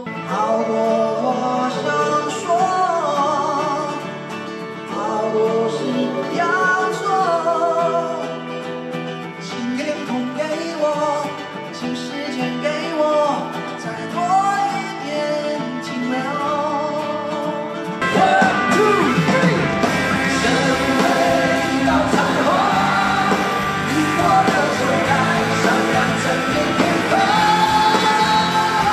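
Two male singers singing a Mandarin pop-rock ballad live with band accompaniment. About eighteen seconds in, the full band with drums and bass comes in and the music gets louder.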